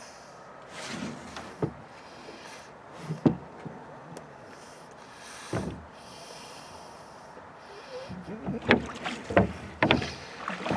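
Wooden oars of a rowboat knocking in their oarlocks as they are handled and pulled: a few separate sharp knocks, then a quicker run of knocks near the end as rowing begins.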